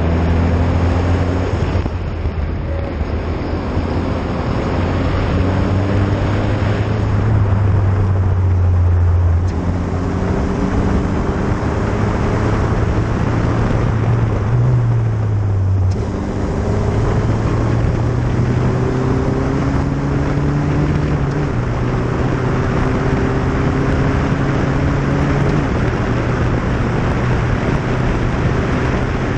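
Single-seater racing car's engine under hard acceleration on track. Its pitch climbs through each gear and drops several times at gear changes and when lifting for corners.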